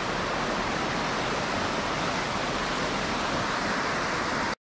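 A swollen river in flood, its fast water rushing in a steady, even noise. The sound cuts off suddenly near the end.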